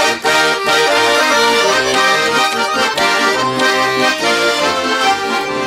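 Accordion playing an instrumental interlude of a Cossack folk song: a melody over regularly repeating bass notes.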